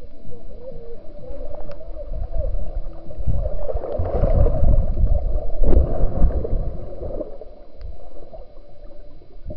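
Muffled underwater churning and bubbling of pool water as swimmers move close past a submerged camera, loudest about four to six seconds in.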